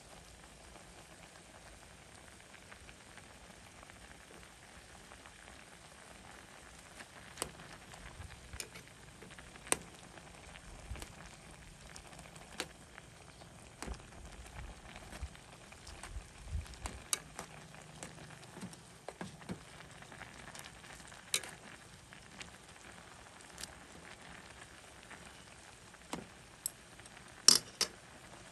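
Instant ramen cooking in a pot on a stove: a faint steady sizzling hiss with scattered sharp clicks and taps, two of the loudest close together near the end.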